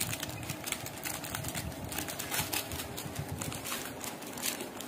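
Plastic wrapper of a Cadbury Dairy Milk Silk bar crinkling and crackling in quick, irregular ticks as it is peeled open by hand.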